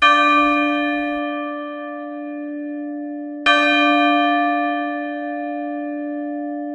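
A bell struck twice, about three and a half seconds apart, each strike ringing on with a long, slowly fading tone.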